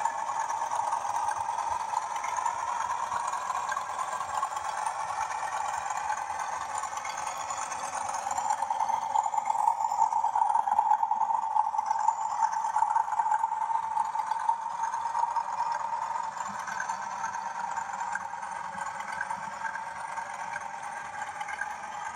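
Model Class 40 diesel locomotive running with a train of coaches, a steady high whine that swells about ten seconds in as it passes closest.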